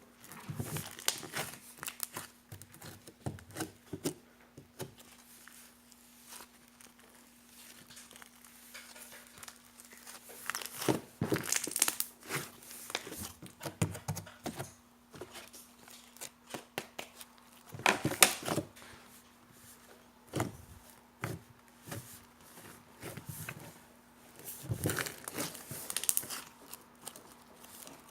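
Jiggly slime being worked by hand: irregular crackling, squishing and popping, coming in several louder bouts between quieter stretches. A faint steady hum runs underneath.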